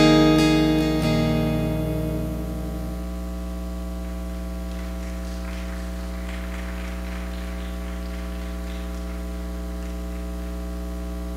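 Final strummed chord of an acoustic guitar ringing out and fading away over about three seconds. It leaves a steady mains hum.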